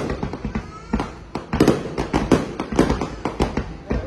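Fireworks display: aerial shells bursting in rapid, irregular bangs, several a second. The bangs are sparser for the first second or so, then come thick and fast.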